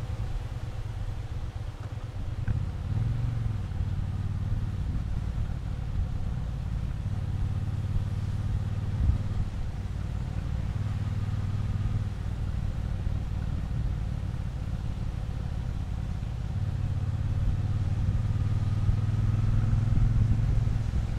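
Triumph Bonneville T120 parallel-twin motorcycle engine running under way, a steady low rumble. It swells around three seconds in and again over the last few seconds as the throttle opens.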